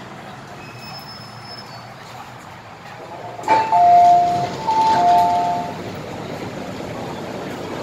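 MTR M-Train door chime as the doors open: a short knock, then a two-note chime, high then low, sounds twice over about two seconds, over the steady hum of the train at the platform.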